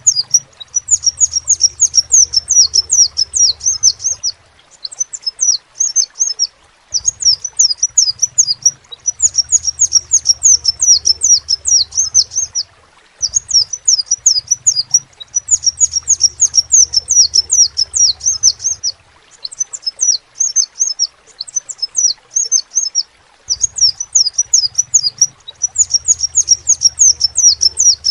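Crimson sunbird (kolibri sepah raja) singing: phrases of rapid, high, twittering chirps lasting a few seconds each, separated by short pauses.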